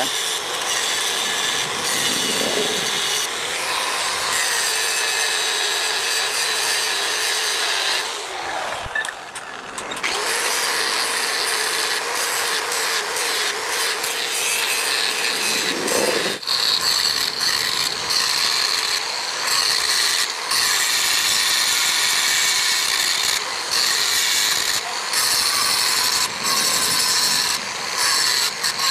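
Handheld angle grinder grinding a strip of used car spring steel: a steady high whine over the hiss of the disc biting metal. It eases off briefly about a third of the way in, then bites again.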